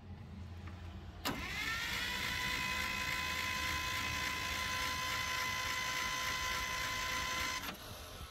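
Starter motor spinning the Dodge M37's flathead six with its cylinder head removed, so there is no compression: a click, then a whine that rises in pitch, holds steady for about six seconds and stops.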